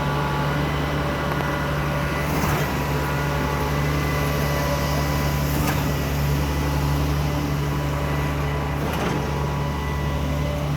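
A steady engine drone with a strong low hum throughout, and a few faint knocks about three seconds apart.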